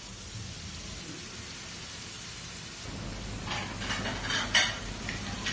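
Meat and vegetable stew sizzling and bubbling in a hot pan fresh from a wood-fired oven. It gets louder about three seconds in, with a few sharp crackles near the end.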